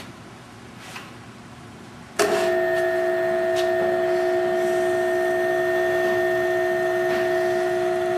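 Drill tap machine starting up suddenly about two seconds in and running with a steady, loud mechanical whine of a few fixed pitches, tapping holes. A couple of light clicks come before it starts.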